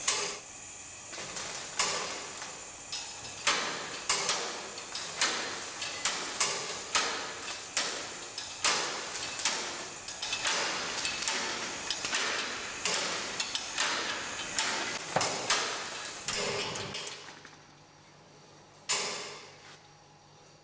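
A run of sharp metallic knocks and clatters, irregular and often about two a second, from a scrap-iron chain-reaction machine, over a steady hiss. Near the end it goes quieter, with one last sharp knock.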